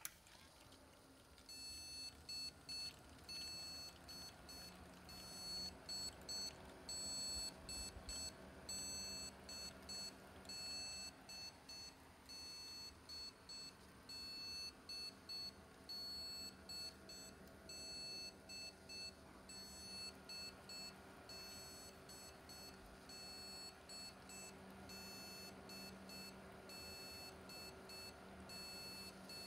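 A PC's internal speaker repeating a power-on self-test beep code, one long beep then two short ones over and over. This is the motherboard reporting a fault at startup.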